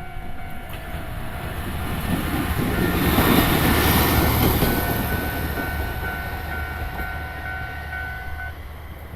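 Mooka Railway diesel railcar passing over a level crossing. Its sound swells to a peak about three to four seconds in, then fades away. The crossing's warning bell rings steadily throughout and stops shortly before the end.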